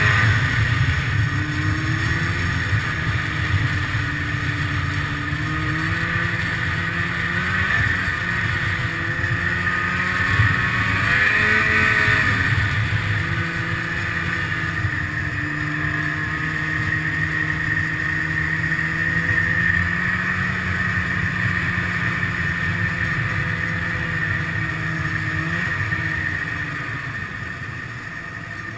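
Snowmobile running steadily at speed, its engine pitch wavering a little, rising and falling once about twelve seconds in, and easing off near the end.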